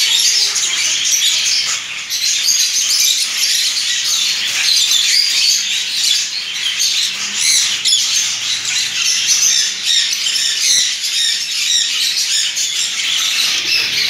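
A large flock of caged budgerigars chattering, chirping and squawking all at once in a loud, continuous din.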